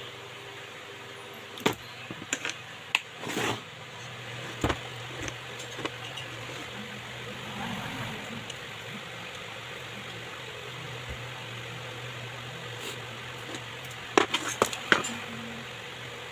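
A steady low hum with scattered sharp clicks and knocks, several in a quick cluster near the end.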